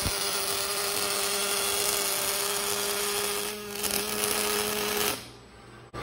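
MIG welding arc from a Lincoln Fanuc collaborative robot's torch laying a bead, a steady crackling hiss with a brief dip about three and a half seconds in. It cuts off about five seconds in as the arc stops.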